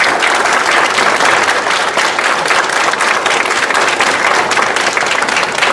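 An audience applauding steadily in a room, many hands clapping at once.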